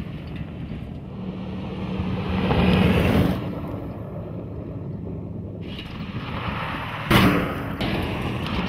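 2011 Ford F-150 SVT Raptor's V8 engine running hard with tyre and gravel noise as the truck drives fast over dirt. It grows louder to a peak about three seconds in, then eases, and a louder burst starts suddenly about seven seconds in.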